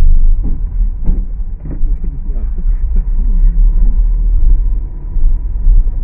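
Steady low rumble of a moving road vehicle, with faint voices now and then.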